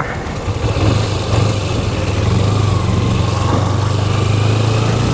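Motorcycle engine running steadily as the bike rolls slowly.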